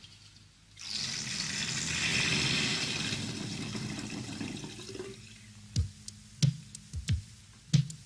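A rush like running water for about four seconds, then a string of short plops that fall in pitch, about two a second, with music.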